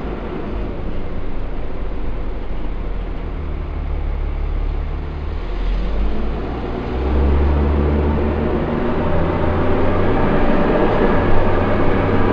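Dennis Dart SLF bus diesel engine running with its radiator cooling fan on, heard from inside the rear of the saloon. About seven seconds in the engine note steps up, and it grows louder towards the end.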